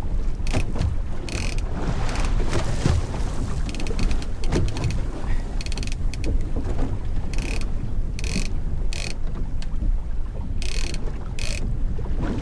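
Fishing reel ratcheting and clicking in short bursts, roughly one a second, as a big fish pulls line against the drag while it is being fought. Wind and sea rumble underneath.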